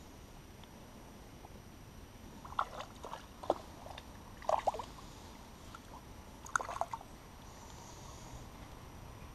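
Small water splashes and sloshes in three short clusters a couple of seconds apart, over a faint steady background.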